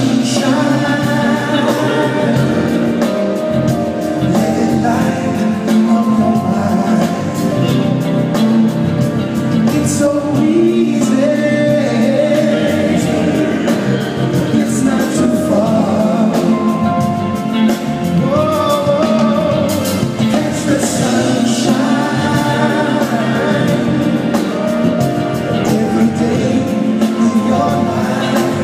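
Live band music with singing, heard from high in the audience of a large concert hall.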